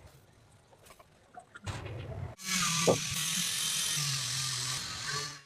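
A small handheld high-speed electric tool runs with a steady, loud hiss and a low hum, starting about two and a half seconds in and cutting off abruptly at the end. Before it come a few faint clicks and handling knocks.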